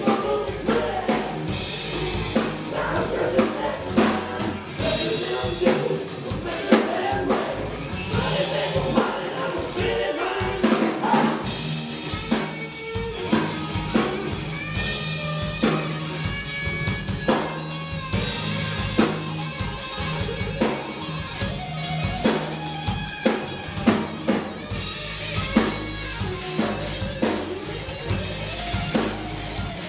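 A live band playing electric guitars over a drum kit, with steady drum hits under sustained guitar lines.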